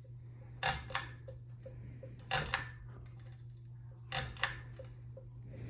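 Ceiling fan running with a steady low electrical hum and a light double click that repeats about every two seconds.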